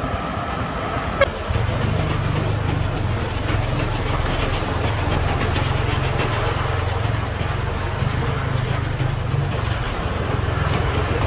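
Diesel engine running at low speed with a steady low drone, growing a little louder about a second and a half in, just after a short click.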